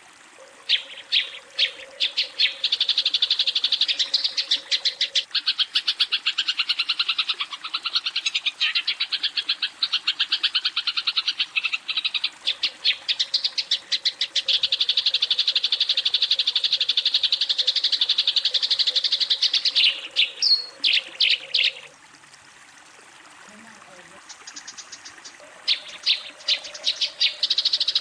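Eurasian tree sparrow chattering in long, fast runs of repeated chirps: the aggressive fighting call used to challenge a rival. The chirping stops for a few seconds past the middle, then starts again near the end.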